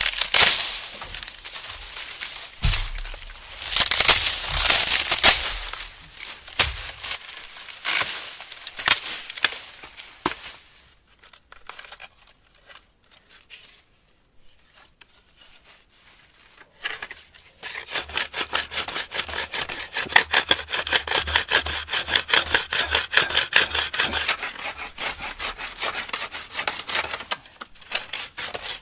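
Dry palm fronds crackling and rustling as they are handled and stripped. From about two-thirds of the way in, a fast, steady back-and-forth scraping as a dry palm stem is rubbed against granite rock.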